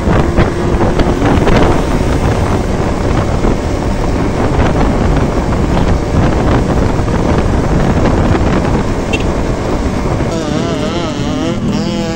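Wind buffeting the microphone over the running engine of a Yamaha F1ZR two-stroke motorcycle being ridden on the road.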